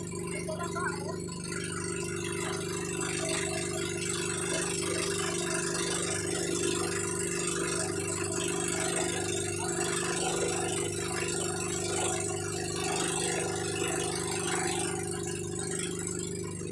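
Bangka outrigger boat's engine running steadily while under way, a constant low drone with a rattle, over the hiss of wind and water.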